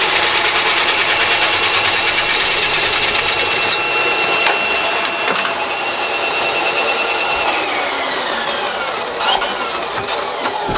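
Powered drain snake running steadily with a fast even whirr while its cable clears a clogged kitchen drain line. About eight seconds in its pitch falls as the motor winds down, followed by a few light clicks.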